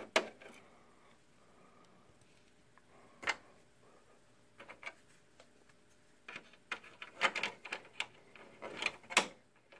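Scattered small clicks and taps of a screwdriver backing out a small screw, then of the small metal bracket and plastic lamp power connector being handled inside the projector. The taps come thicker in the second half.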